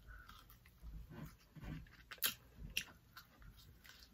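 Faint chewing and biting on a piece of food from egusi soup, with a few short, sharp mouth clicks, the sharpest about two seconds in.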